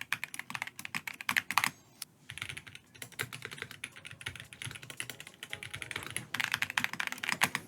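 Fast typing on a plastic-cased KBDfans mechanical keyboard: rapid key clicks, with a short pause about two seconds in. The typing is softer in the middle and louder again near the end.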